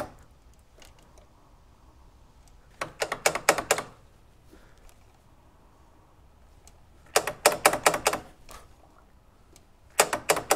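Three bursts of quick metallic clicks from a small wrench on a BMW motorcycle's rear brake-caliper bleeder valve, as the valve is worked open and shut during a manual brake bleed. The first burst comes about three seconds in, the second in the middle, and the third near the end.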